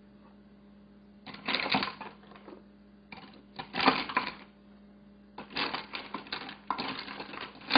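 Lidded plastic containers being pushed down into a glass baking dish full of ice cubes, the ice clinking and rattling against the dish in several short bursts as each container goes in.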